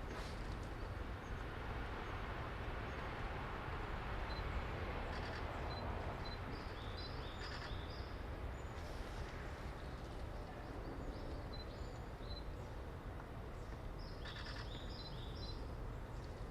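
Birds chirping in short high notes, in two bouts: one in the middle and one near the end. Underneath is a steady outdoor background hiss with a low rumble.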